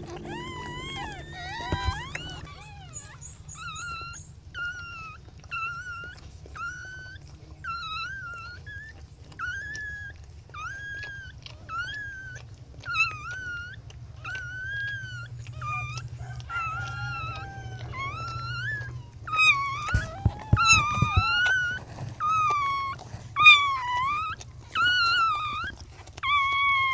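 Newborn puppy crying in a string of short, high squeals, about one a second, growing louder in the last third.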